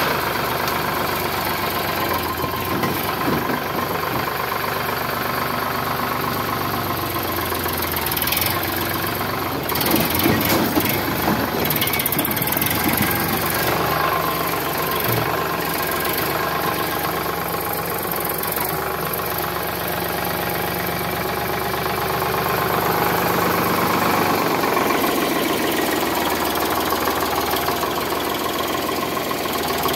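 Sonalika DI 745 III tractor's diesel engine running steadily, briefly louder about ten seconds in.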